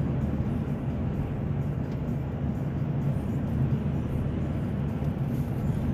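Steady low rumble of a car being driven, heard from inside the cabin: engine and tyre noise with no sudden events.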